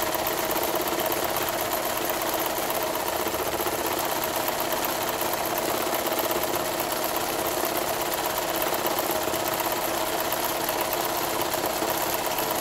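Brother ZLB911 zigzag sewing machine running steadily at speed, sewing a wide zigzag stitch while the fabric is guided by hand for free-hand embroidery.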